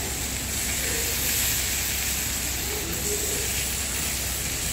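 Water from a garden-type hose spraying onto a wet tiled floor, a steady hiss.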